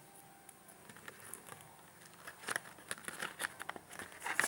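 Small cardboard toy prize box being opened by hand: scattered crackles and clicks of cardboard and wrapping being torn and handled, sparse at first and busier and louder from about halfway.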